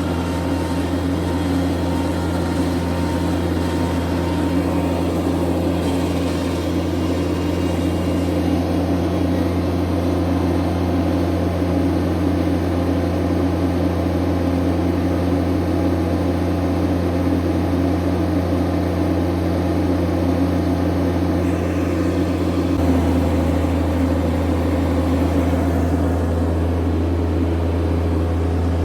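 Bobcat MT100 mini skid steer's engine running steadily at constant speed, with a slight shift in its tone about 23 seconds in.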